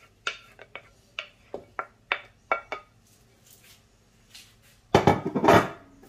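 A spoon clinking against cookware in a string of short, sharp taps, then a loud spell of scraping and clattering about five seconds in as the fried rice is stirred in the wok.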